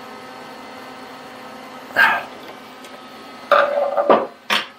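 Steel tools (spanner and steel bars) knocking against the mini lathe while the spindle bearing jam nut is tightened for preload. There is one clank about two seconds in, then a short cluster of knocks with a brief ring, and a sharp clink near the end, all over a steady low hum.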